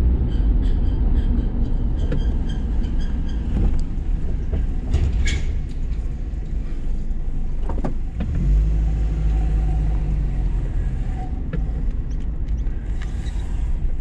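Car engine and tyre rumble heard from inside the cabin while driving slowly, with a light regular ticking over the first few seconds and a steadier engine note from about eight seconds in.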